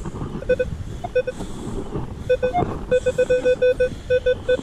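Metal detector target tone beeping as the search coil sweeps over a deep buried target: a few scattered beeps at first, then quick repeated beeps about five a second from about three seconds in.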